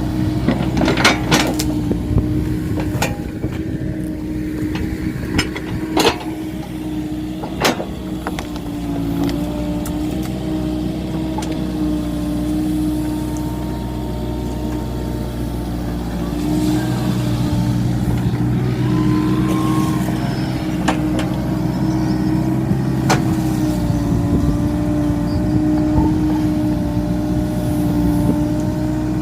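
Komatsu PC45 mini excavator's diesel engine running steadily, with sharp knocks and clanks now and then, the loudest in the first eight seconds.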